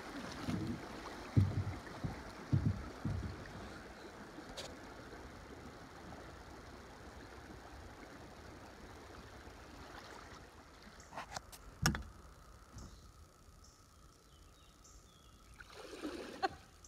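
Kayak hull bumping over a rock in a shallow riffle, a few low knocks in the first three seconds, with the steady rush of river water past the boat. A single sharp knock about twelve seconds in, after which the water goes quieter.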